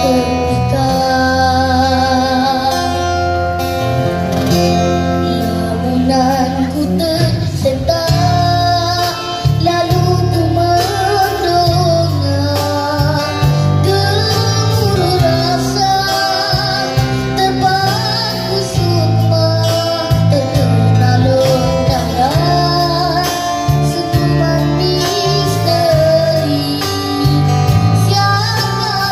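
A boy singing into a microphone with a live band of acoustic guitar, electric bass guitar and drums, amplified through a small street PA.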